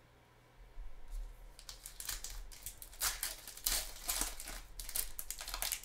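Foil wrapper of a trading-card pack crinkling as it is torn open by hand, an irregular run of crackles starting about a second in.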